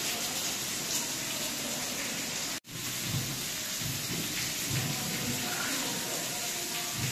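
Heavy rainwater pouring and splashing, a steady dense hiss. It cuts out for an instant about two and a half seconds in, then carries on with a few low thumps.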